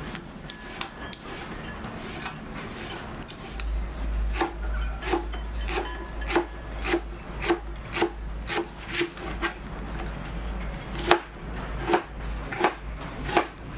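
Kitchen knife cutting vegetables on a plastic cutting board: softer slicing at first, then from about four seconds in, even chopping strokes tapping the board about twice a second, with a few more near the end. A low rumble runs underneath from about four seconds in.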